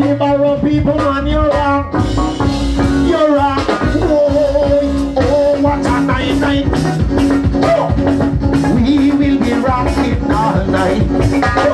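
Loud dance music with a singer over a steady, driving drum beat, played through a loudspeaker.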